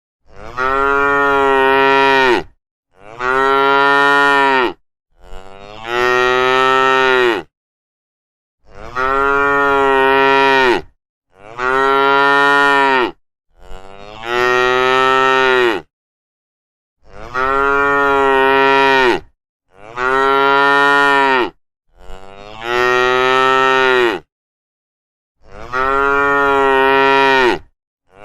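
Cow mooing: about ten long moos in a row, each around two seconds and steady in pitch, with dead silence between them.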